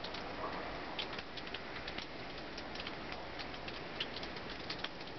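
Outdoor ambience during a snowfall: a steady hiss with many faint, irregular light ticks scattered through it.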